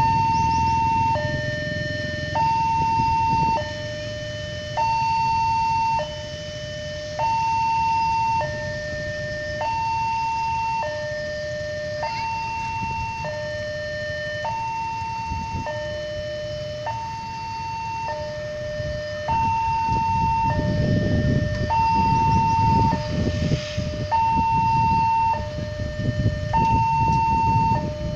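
Railway level-crossing warning alarm sounding a steady two-tone hi-lo signal, a higher and a lower tone alternating about every second and a bit, the warning that a train is approaching. A low rumble swells underneath about two-thirds of the way through.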